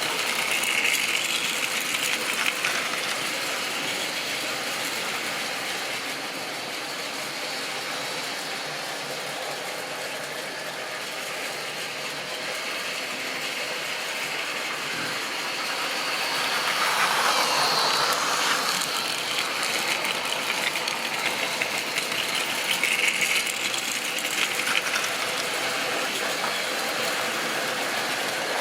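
Model railway train running on its track: the locomotive's small electric motor and gears whirring, with the wheels rattling along the rails. It grows louder for a few seconds just past the middle as the train comes close.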